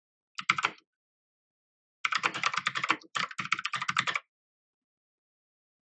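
Typing on an MK Disco TKL mechanical keyboard: a short flurry of keystrokes about half a second in, then about two seconds of fast typing with a brief break in the middle.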